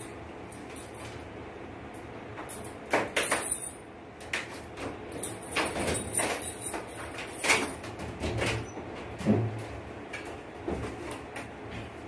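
Plastic clicks, rattles and scrapes from the front panel and mesh air filters of a split air conditioner's indoor unit being handled and the filters slid out of their slots, starting a few seconds in and coming irregularly.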